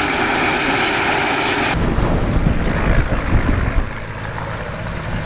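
A loud, steady rushing hiss with a few faint steady tones that cuts off abruptly about two seconds in, giving way to low, gusty buffeting of wind on the microphone.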